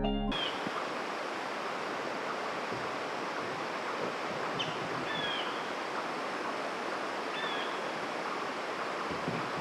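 Steady rushing of flowing water, with a few short, high, down-slurred chirps, likely bird calls, about halfway through and again later.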